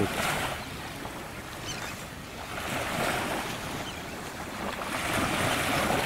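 Gentle surf of a calm sea washing in slow surges that swell and fade every two to three seconds, with wind on the microphone.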